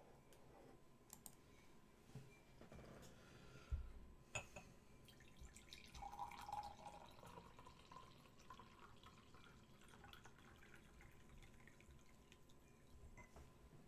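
Near silence: quiet room tone with a few faint clicks, and two sharper knocks about four seconds in.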